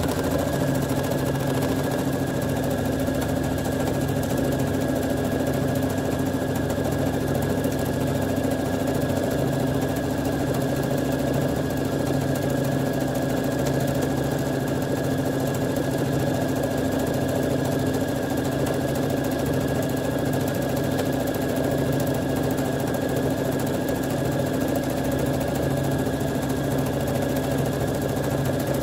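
Electric domestic sewing machine running steadily at an even speed, sewing a built-in stitch pattern through water-soluble film layered with fabric offcuts.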